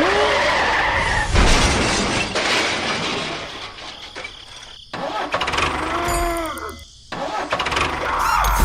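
Motor vehicle engine noise, cut off abruptly twice, with a few short rising-and-falling pitched glides laid over it.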